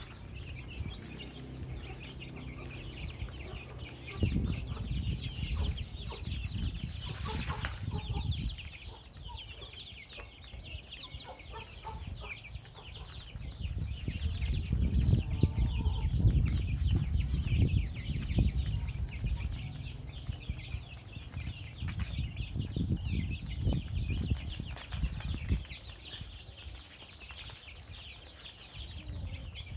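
A flock of young chicks peeping and chirping without a break as they feed, their calls short and high. Under them, a low rumbling noise comes and goes, loudest about halfway through.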